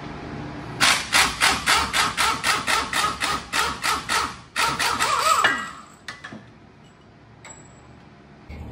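Air impact wrench hammering in quick repeated bursts, about four a second, as it runs down the screw of a strut spring compressor on a coilover spring. Then about a second of whirring that falls in pitch before it stops.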